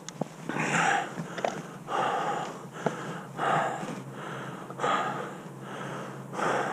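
A man breathing heavily into the microphone, catching his breath after exertion, with about five loud breaths roughly a second and a half apart.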